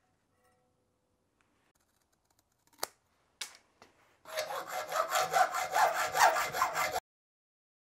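Hand hacksaw cutting a clamped piece of aluminium sheet for a bracket: quick back-and-forth strokes, about three a second, for some three seconds, stopping abruptly. A single sharp click comes a little before the sawing starts.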